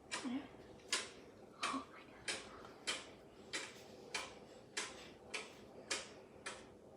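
A series of about eleven sharp clicks at a steady pace, roughly one every 0.6 seconds.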